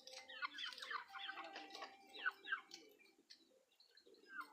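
Small birds chirping: a rapid run of short, falling chirps that thins out about three seconds in.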